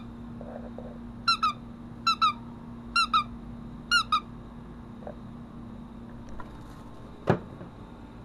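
A rubber squeaky dog toy squeezed four times, about once a second, each squeeze giving a quick double squeak. A steady low hum runs underneath, and a single short, loud sound comes about seven seconds in.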